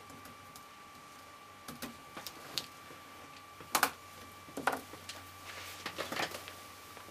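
A ballpoint pen scratching briefly on paper, then a few sharp clicks and taps as the pen and a gold ring are set down on the desk.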